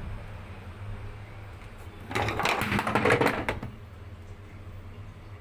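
Steady low hum, with a burst of mechanical rattling and clattering lasting about a second and a half near the middle.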